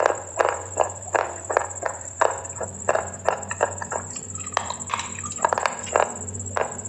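Close-miked crunchy chewing: a person biting and crunching something hard and brittle, an irregular run of sharp crunches about two a second. A steady high whine sits underneath.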